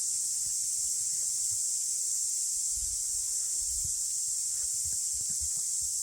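Cicadas in the bush trilling as a steady, unbroken high-pitched chorus.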